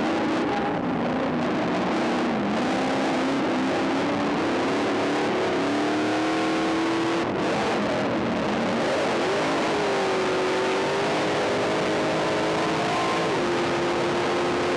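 Stadium Super Truck race engine heard from inside the cab, running hard under full throttle, its pitch climbing, dropping about seven seconds in, then climbing again and holding steady near the end. A steady rush of wind and road noise runs underneath.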